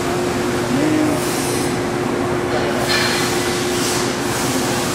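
Metal lathe running, a steady motor hum under broad machine noise, with brief higher hissing scrapes about three and four seconds in.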